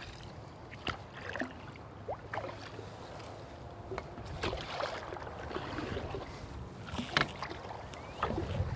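Sounds of a kayak on the water: splashing from paddle strokes, with scattered knocks of gear or paddle against the hull.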